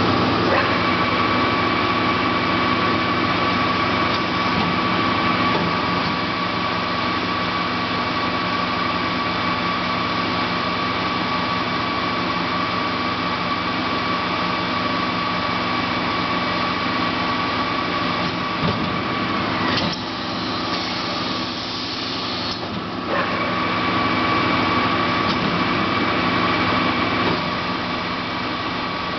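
Mubea CNC punching machine with drilling/deburring unit running: a steady machine hum with a high, even whine. About two-thirds of the way through, the whine stops for some three seconds, then starts again.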